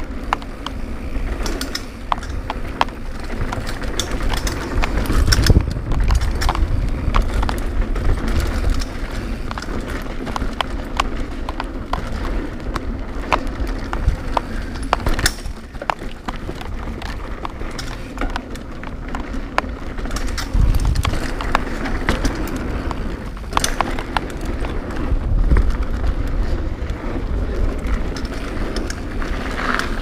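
Cannondale Claymore mountain bike descending a dirt trail: tyres rumbling over the ground, wind buffeting the handlebar-mounted camera, and frequent sharp clacks and rattles from the bike over bumps.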